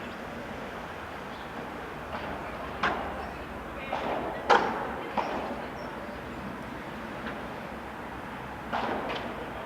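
Steady outdoor background noise with a handful of short, sharp knocks or clicks, the loudest about halfway through and two close together near the end.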